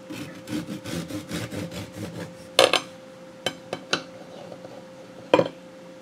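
Knife sawing back and forth through a loaf of baked orange quick bread, a quick rasping stroke about five times a second for two seconds or so, followed by a few sharp separate clicks as the cut finishes.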